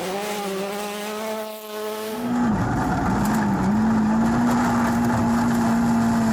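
WRC rally car at full throttle on a gravel stage, its engine held at a steady high pitch. About two and a half seconds in, a rushing noise of tyres and gravel swells under it, and the engine note dips briefly twice before holding high again.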